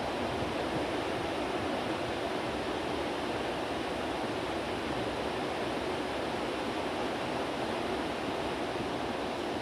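Steady hiss of heavy rain, a constant even noise without breaks.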